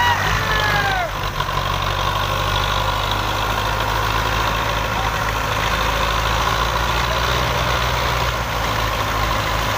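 Belarus 510 tractor's diesel engine running steadily as it pulls a heavily loaded sugarcane trailer.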